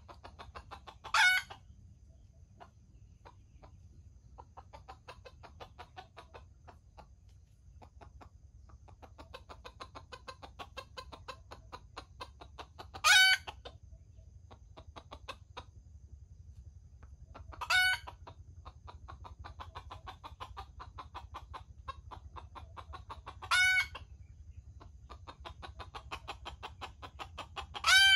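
A junglefowl rooster crows five times in short, loud calls spaced several seconds apart, with a softer rapid ticking in between.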